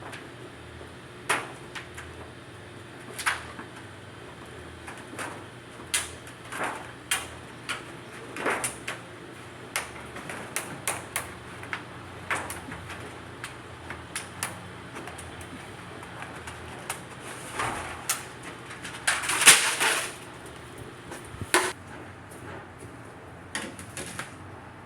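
Scattered knocks, taps and clanks from hands-on work with tools and sheet aluminum, irregular, about one every second or two. About nineteen seconds in there is a louder, longer scraping burst.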